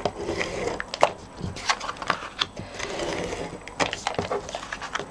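Stampin' Up! Fast Fuse adhesive applicator laying adhesive strips along the edges of cardstock: several short dispensing runs with sharp clicks between them, and the card rustling under the hands.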